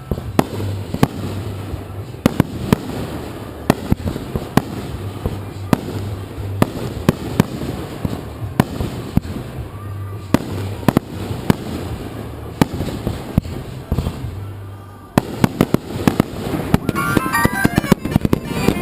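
Fireworks going off in a string of sharp bangs, a few each second, over a pyromusical soundtrack with a steady bass line. Near the end the bangs come thick and fast, with crackling.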